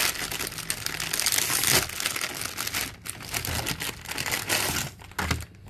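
Clear plastic bag crinkling as it is handled, pulled open and a stack of card-backed packs is slid out of it, in irregular rustling spurts that ease off near the end.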